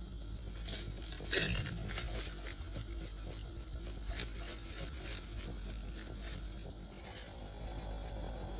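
Irregular rustling and scraping strokes, several a second, over a steady low hum; the strokes stop about a second before the end.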